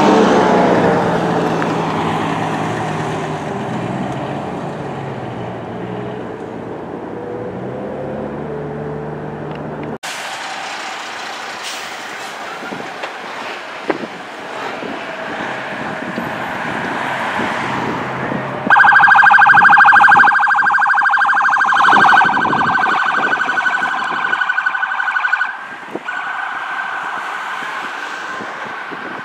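Road traffic passing, then an emergency vehicle's siren sounds loudly in a fast, pulsing warble for about seven seconds past the middle.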